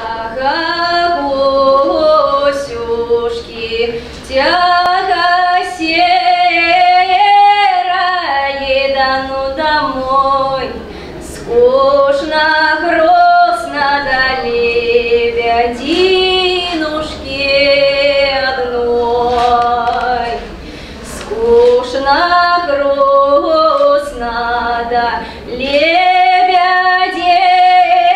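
A woman singing a Russian folk song solo and unaccompanied, in long drawn-out phrases broken by short pauses for breath.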